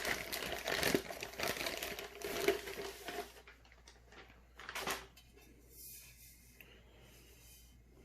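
Plastic packaging crinkling and rustling as an intake kit part is handled and unwrapped for about three seconds, then one brief rustle about five seconds in.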